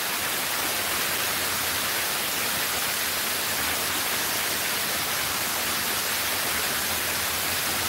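Water pouring down the tiers of a large stepped cascade fountain: a steady, unbroken hiss of falling water.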